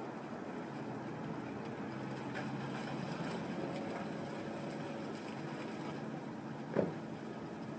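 Steady outdoor background rumble like distant traffic, with one short knock about seven seconds in.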